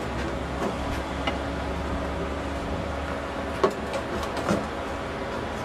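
Steady low mechanical hum in a workshop, with a few light metallic clinks as steel clutch drums and clutch plates from an automatic transmission are moved about on the bench.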